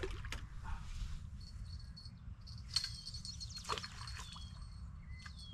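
Birds calling at the river's edge, a high thin steady trill with short falling chirps, over a low wind rumble on the microphone. Water splashes and sloshes briefly at the start, and a single sharp click comes near the middle.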